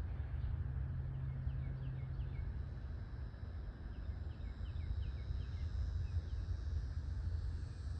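Outdoor pond ambience: a small bird calls in two runs of quick, falling chirps, about two or three a second, over a steady low rumble. A faint, high, steady buzz comes in about halfway through.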